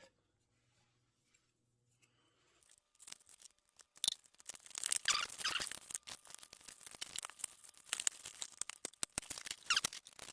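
A cardboard toy box being torn open by hand, with dense, irregular crackling and rustling of the packaging starting about three seconds in.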